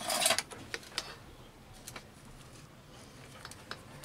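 Hands handling the wires and the plastic CRT tube socket on its circuit board: a short scraping rustle at the start, then a few scattered small ticks and clicks.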